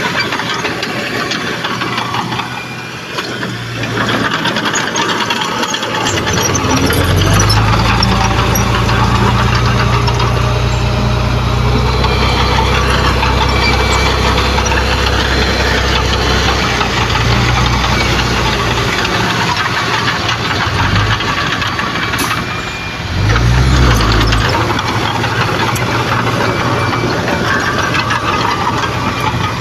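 Heavy diesel engine of earthmoving machinery working under load, over a constant rough mechanical clatter. It revs up strongly about six or seven seconds in and holds high through the middle, eases off, then surges again briefly a little past the twenty-second mark.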